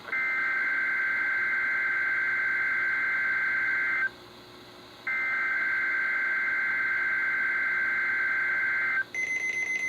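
NOAA Weather Radio SAME header: a digital two-tone data warble, played through weather radio receivers, in two bursts of about four seconds with a one-second gap between them. It signals the start of a coded alert, here a required weekly test. About nine seconds in, a short high-pitched beeping from a receiver's alert starts.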